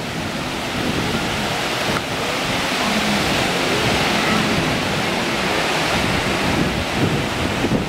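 Ocean surf breaking and churning in a steady rush, with wind buffeting the microphone.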